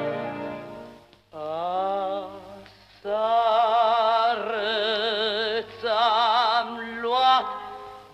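Romanian folk song sung by a woman, long held notes with a strong, wavering vibrato, broken by a short pause about a second in.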